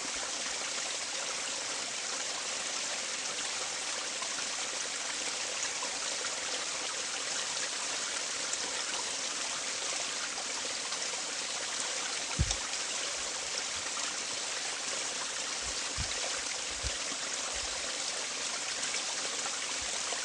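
Running water: a steady, even rush. A few low bumps break through, the loudest about twelve seconds in.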